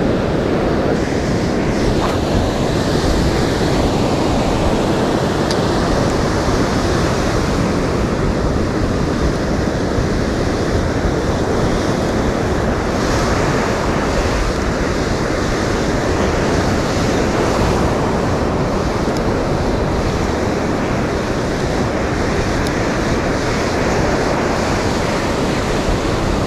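Ocean surf breaking and washing up on a sandy beach, a steady wash of noise, with wind buffeting the microphone.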